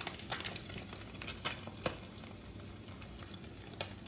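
Eggs frying in a hot pan: a steady sizzle with sharp scattered pops of spitting fat.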